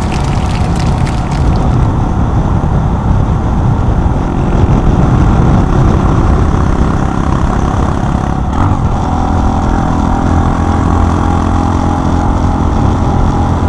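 Honda Monkey 125 single-cylinder engine running while riding, under heavy wind rush on the microphone. About two-thirds through, the engine's note becomes steady and clearer.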